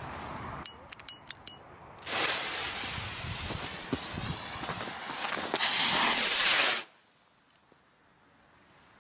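A few sharp clicks, then a firework fuse in a ground mortar tube hissing for about five seconds, louder in its last second, before it cuts off abruptly as the shell is launched.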